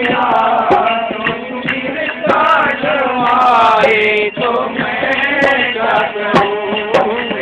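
Male voice singing a devotional Hindi bhajan, accompanied by hand strokes on a dholak barrel drum.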